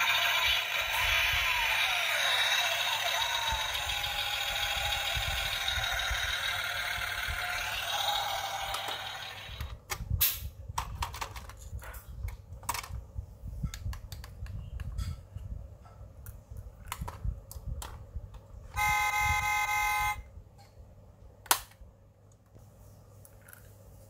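A 1/24 scale diecast Toyota Land Cruiser LC300 model's sound module plays a recorded engine sound effect through its small speaker for about nine seconds, then clicks and taps as the model is handled and set down. Near the end the model gives a single horn beep of about a second and a half, followed by a sharp click.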